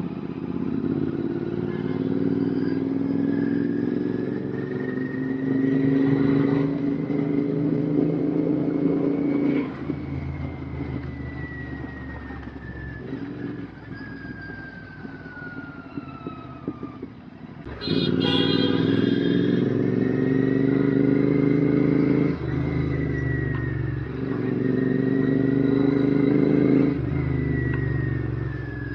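Royal Enfield GT650's 648 cc parallel-twin engine through an aftermarket RRP exhaust, pulling under throttle with its pitch climbing for about ten seconds. The throttle then closes and it runs down for several seconds. After a brief dip it accelerates hard again, with a gear change partway, and eases off near the end.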